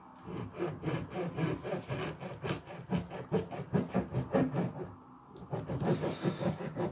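A small knife sawing through the crust of a crusty loaf, quick back-and-forth rasping strokes at about four or five a second, with a short pause about five seconds in.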